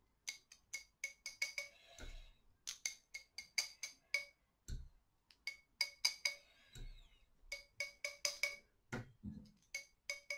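A paintbrush tapped repeatedly against a metal palette knife to flick white gouache splatters onto a painting: quick runs of light metallic clicks with a short ring, several a second, broken by brief pauses and a few duller knocks.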